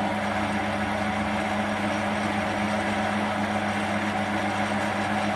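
Metal lathe running steadily with a constant hum while a carbide cutter turns a taper.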